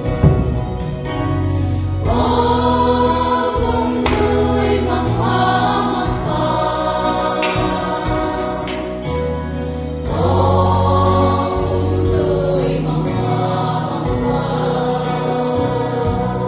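A women's choir singing a gospel song together from song sheets, in phrases, with a steady low accompaniment of held bass notes and a light regular beat underneath.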